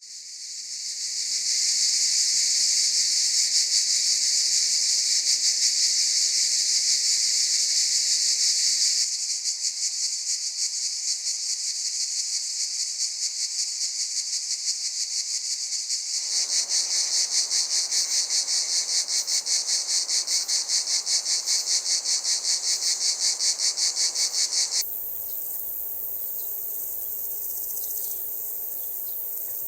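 Cicadas and other insects calling in a run of separate recordings. A loud, steady, high buzz fades in. It gives way to rapidly pulsing calls. About 25 seconds in, it switches abruptly to a quieter, thinner, higher-pitched steady trill.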